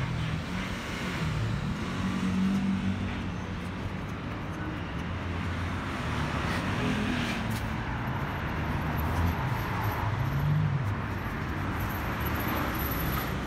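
Steady road traffic noise from passing cars, with low engine hum rising and falling.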